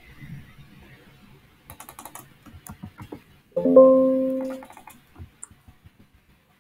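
Computer keyboard typing, a quick run of key clicks, then about three and a half seconds in a single pitched chime rings for about a second and fades away.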